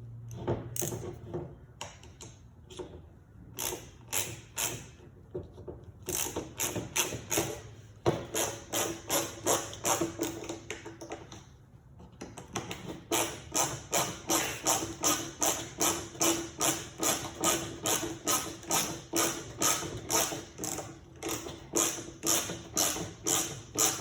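Ratcheting hand tool being worked in short strokes to drive a screw, clicking about two to three times a second, with a brief pause about halfway through.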